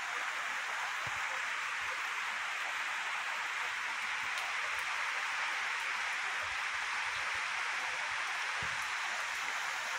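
Steady rain falling, an even hiss that holds at one level throughout.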